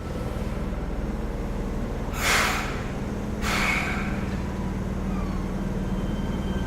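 Fukuoka City Subway 1000 series train standing in the station with a steady low hum, broken by two short hisses of air about two and three and a half seconds in.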